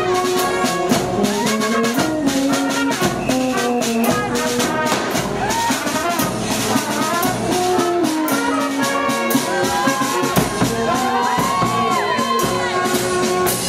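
A brass band playing a tune with drums beating a steady rhythm.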